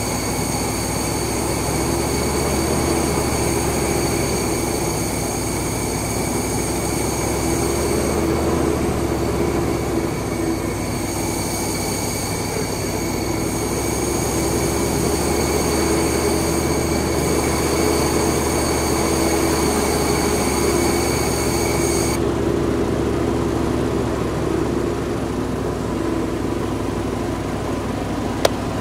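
GrimmerSchmidt 175 tow-behind air compressor running steadily, feeding air into a sprinkler system for a fall blowout, with an even low drone. A set of high, thin whistling tones over it stops about two-thirds of the way through, and a short click comes near the end.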